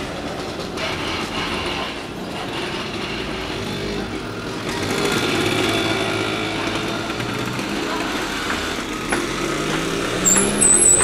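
Street traffic outside with small motorcycle engines running, a steady mechanical drone. Near the end an engine note rises in pitch and a brief high-pitched squeal cuts in.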